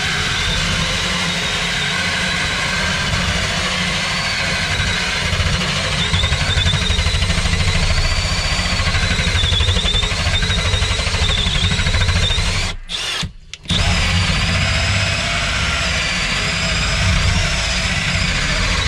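Cordless drill driving a hole saw through chipboard loft flooring, cutting steadily with a wavering whine; it stops briefly about two-thirds of the way in, then carries on cutting.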